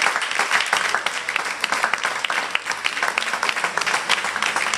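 A group of people applauding: dense, steady clapping from many hands.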